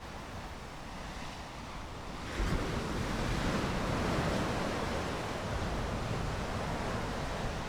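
Rough sea surf: a wave breaks suddenly about two seconds in, and the wash of surf carries on louder after it.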